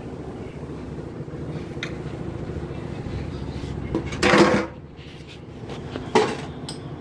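Stainless steel dishes and lids clattering as they are washed in a kitchen sink, over water running from the tap. The loudest clatter comes a little past the middle, with a sharp clank near the end.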